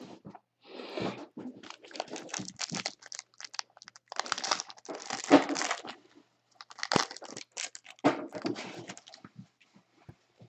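Wrapper of a basketball trading card pack crinkling and tearing as it is opened, in irregular scratchy bursts.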